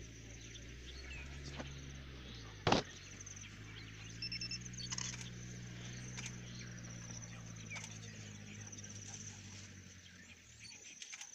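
Safari Land Rover's engine running low and steady. A sharp click comes a little under three seconds in, after which the hum sits slightly higher. Faint high chirping runs above it.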